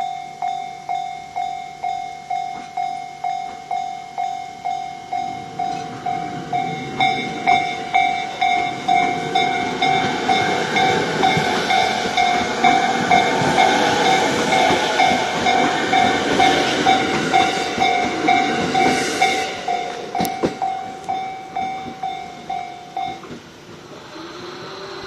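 A Japanese level-crossing warning bell rings in a steady repeating ding while a JR 209-series electric train pulls away from the station and passes the crossing. The train's running noise builds, peaks about halfway through and then fades. The bell stops near the end.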